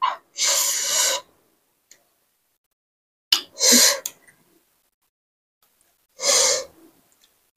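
A person's breathy gasps close to the microphone, three of them a few seconds apart, each lasting under a second.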